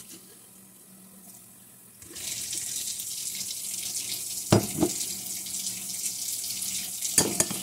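Kitchen tap water starts about two seconds in and runs steadily onto shirataki noodles in a metal mesh strainer, rinsing off their packing brine. A few sharp knocks come as the strainer is handled over the bowl.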